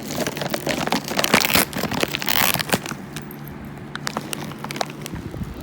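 Crinkling and crackling of a cough drop wrapper being handled, with a denser, louder stretch of crinkling about a second in, then scattered crackles.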